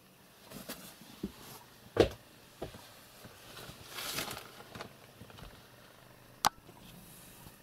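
Handling noise as a cardboard box is eased open to look inside: a few soft knocks, the loudest about two seconds in, a rustle of cardboard around four seconds in, and a sharp click near the end.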